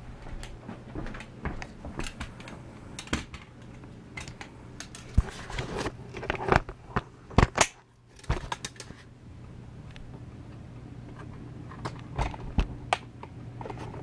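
Clatter and knocks of a vintage Hoover Convertible upright vacuum being handled and laid on its side, its plastic and metal parts rattling against each other and the floor, over a steady low hum. The knocks come thickest in the middle and again a couple of times near the end.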